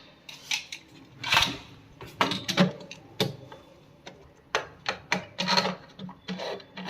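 Fittings of a concealed toilet cistern being handled and tightened by hand: irregular scraping and rubbing with scattered sharp clicks and knocks.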